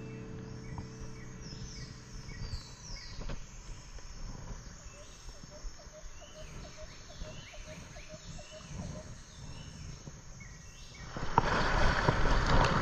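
Birds chirping over a low background of outdoor noise, with a faint run of quick ticks midway. About eleven seconds in, a louder rushing noise comes in, in step with paddling the kayak through the river current.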